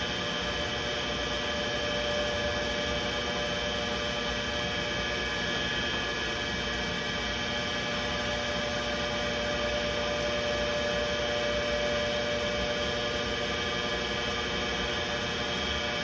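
Bell & Gossett circulating pump and its electric motor running in a boiler room, a steady hum with steady whining tones over it, while air is being bled from the pump's volute to stop cavitation.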